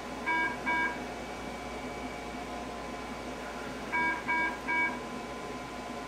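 SWIFT microwave wart-treatment machine beeping as its handpiece is held on a plantar wart: two short beeps soon after the start, then three more about four seconds in, over a faint steady tone.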